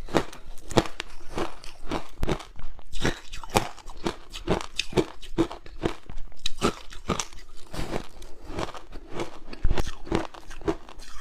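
Frozen passion fruit ice being bitten, a continuous run of crisp crunches, about two or three a second.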